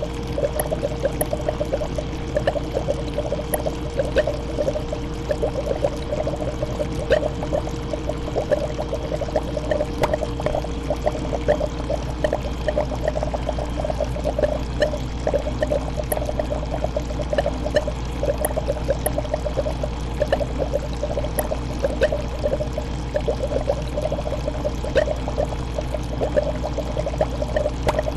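Aquarium water bubbling and trickling steadily, a fast, continuous run of small bubble pops over a low, steady hum.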